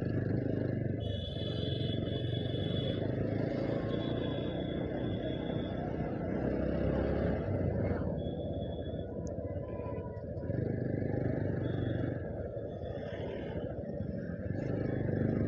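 Motorcycle engine running at low speed with road noise in town traffic, with short high tones now and then.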